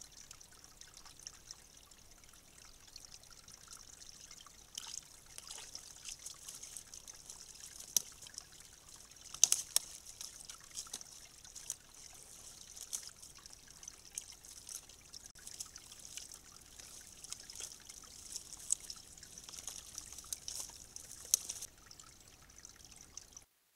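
Water trickling, with irregular rustling and crackling of sticks and mud as a beaver works on its dam.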